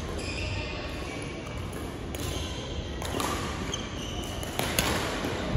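Reverberant sports-hall hubbub during badminton play: sharp racket strikes on shuttlecocks, several close together in the last second or so, with short sneaker squeaks on the wooden court floor over a steady low rumble of the hall.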